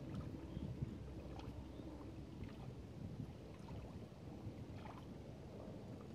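Small waves lapping against a lakeshore, with a low rumble of wind on the microphone and a few soft splashes scattered through.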